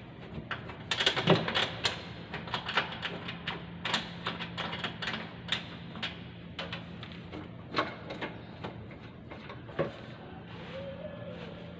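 Irregular clicks, taps and knocks of hands working loose rubber and fittings on a Toyota forklift back into place, over a steady low hum.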